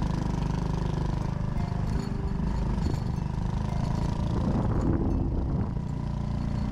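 Honda Cross Cub 110's small single-cylinder four-stroke engine running steadily.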